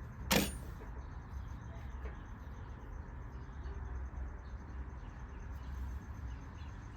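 Sewing machine stitching a seam. A click near the start, then the motor's steady low hum with fast, even ticking of the needle mechanism.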